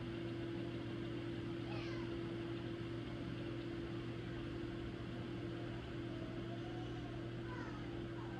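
Steady low hum, with a few faint gliding, meow-like cries: one falling in pitch about two seconds in and a few more near the end.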